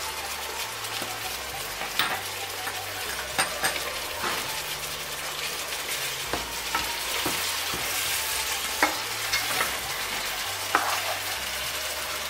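Pieces of goat meat sizzling steadily in hot oil in a non-stick pan as they brown, while a spatula stirs through them, giving scattered sharp clicks and scrapes against the pan.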